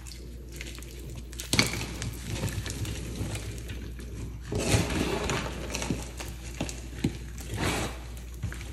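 Hands crushing and crumbling freshly pasted, reformed soft powder blocks, which break with crisp crunches and gritty crackling. There is a sharp crunch about a second and a half in, a longer crumbling stretch around the middle, and another burst near the end.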